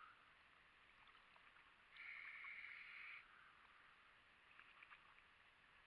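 Faint, muffled water sounds heard through a waterproof camera housing: small scattered ticks of water against the case, and a steady hiss lasting a little over a second about two seconds in.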